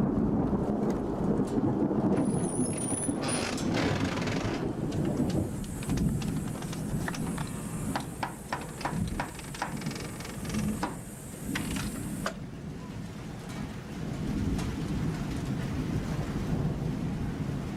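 Thunder rumbling low and continuously in a rainstorm. From about five to twelve seconds in, rain hisses and patters with many sharp drop ticks.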